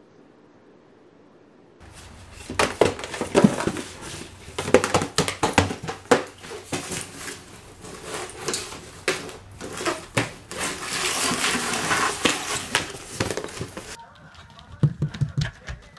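A dog pawing and shoving a small cardboard box across a wooden parquet floor: a busy run of knocks, scrapes and crinkling, with a few softer thuds near the end.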